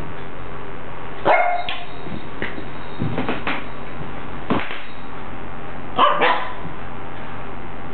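Small long-haired dog barking: a series of short barks at irregular intervals, the loudest about a second in and about six seconds in.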